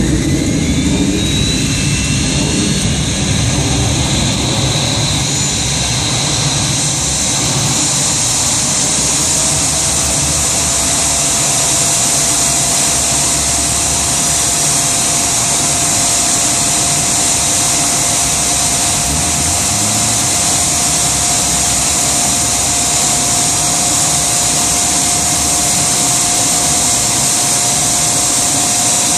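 Gas turbine engine of a Rover Jet 1 recreation running, with a rising whine in the first few seconds as it spools up, then a steady high whine and rush; a steady tone joins about ten seconds in.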